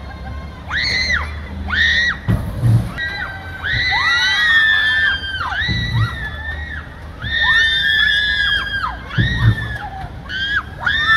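Children screaming on a swinging-boat ride: short high shrieks and several long held screams as the boat swings, with a low thump about every three and a half seconds.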